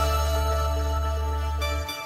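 Background music: held synth-like notes over a steady bass, dropping away briefly near the end.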